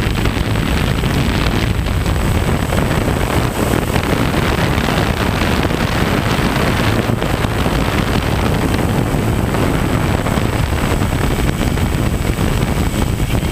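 Heavy wind rushing over the onboard microphone of a multirotor drone in flight, mixed with the steady buzz of its motors and propellers.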